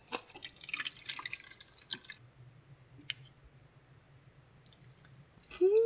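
Gomtang broth splashing and dripping for about two seconds as the soup is handled, then quiet, with a short hummed "mm" near the end.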